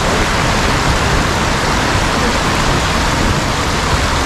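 Steaming hot-spring water rushing and splashing down over rocks in a steady, unbroken rush.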